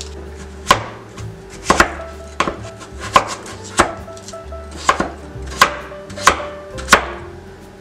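Chef's knife chopping raw peeled potatoes on a wooden cutting board: about ten sharp knocks of the blade meeting the board, roughly one a second, a couple of them in quick pairs.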